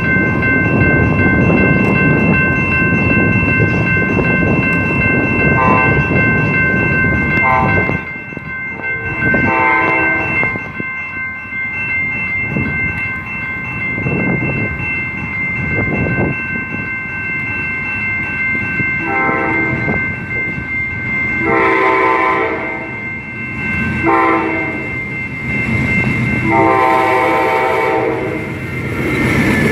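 Amtrak P42DC diesel locomotive sounding its air horn as it approaches: a few short blasts, then the long, long, short, long grade-crossing pattern. The horn is preceded by a loud rumbling noise in the first several seconds.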